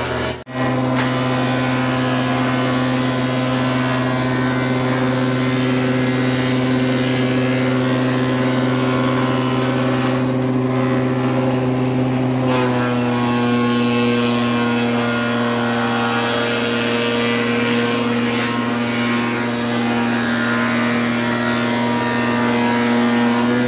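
Woodworking spindle moulder's electric motor running with a steady hum, broken briefly about half a second in, its pitch shifting slightly about halfway through.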